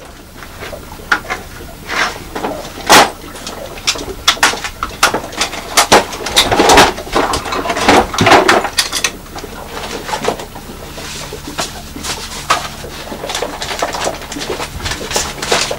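Wooden painting box being opened and handled, with papers rustling: a quick run of sharp clicks and knocks, busiest in the middle.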